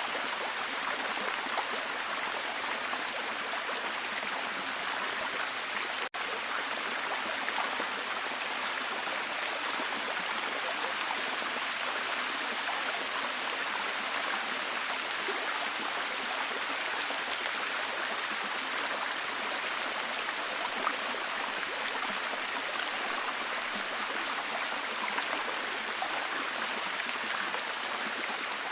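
Rainforest ambience: a steady, even hiss of rain and running water, with a split-second dropout about six seconds in.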